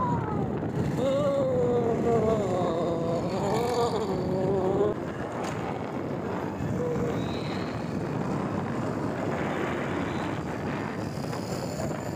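Wind rush and road noise from a moving motorcycle, with a man's long, wavering, wailing voice for the first five seconds or so, his voice shaken while riding in the cold wind. After that only the steady rush remains.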